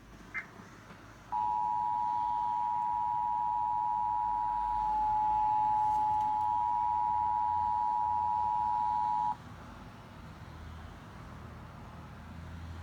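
Emergency Alert System attention signal: two steady tones sounded together for about eight seconds, then cut off. It is the alert that heralds a severe thunderstorm warning.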